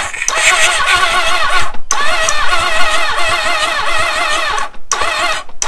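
Honda CB750 inline-four cranked on its electric starter in three stretches with brief pauses, the starter whine wavering up and down as the engine labours through each compression. It turns over too slowly to fire: the battery lacks the power to spin it fast enough.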